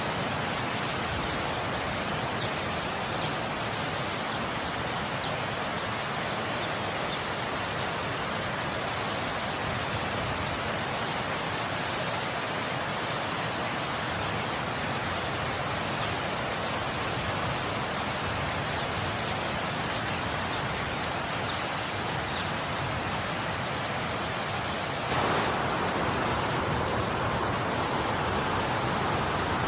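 Steady rushing noise of a heavy snowstorm, with wind and blowing snow heard through a window pane. Near the end it turns suddenly louder.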